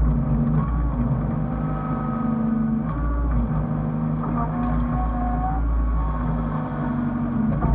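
Hyundai excavator's diesel engine running steadily with a pulsing low drone, and a whine that shifts up and down in pitch as the hydraulics work.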